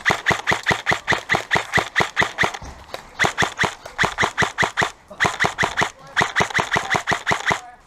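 Airsoft gun firing rapid strings of shots, about five a second, in four runs broken by short pauses. The last run stops shortly before the end.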